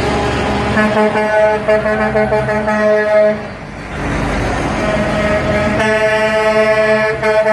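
Air horns of semi-trailer trucks in a passing convoy, sounding two long steady blasts, the first ending about halfway through and the second starting near the end, over the rumble of diesel engines.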